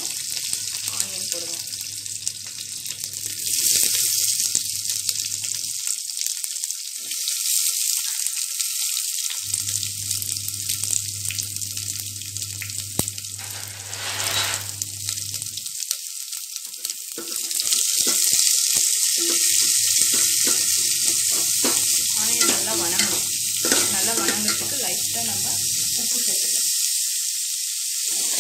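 Curry leaves and then sliced onions sizzling in hot oil in a metal pot, a steady frying hiss, with a ladle stirring the onions near the end.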